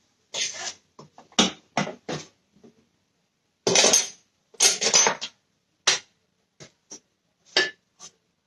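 Spoon and plate clinking and scraping against a frying pan as food is dished onto a plate: a run of irregular knocks and clinks, with two longer scrapes in the middle.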